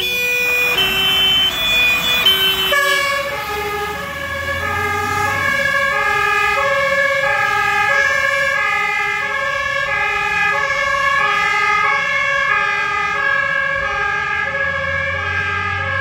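Fire engine's two-tone horn (German Martinshorn) sounding as the truck drives off. About three seconds in it switches to a different horn, whose alternating tones overlap and run on steadily over a held high tone.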